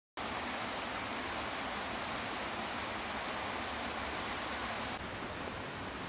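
Steady rush of flowing water from a forest stream, cutting in abruptly just after the start; about five seconds in it becomes slightly quieter and less hissy.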